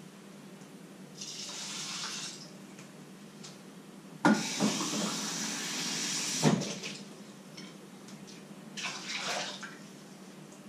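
Kitchen tap running into a stainless-steel sink in three short spurts, the middle and loudest lasting about two seconds, with a sharp knock as it starts and another as it stops.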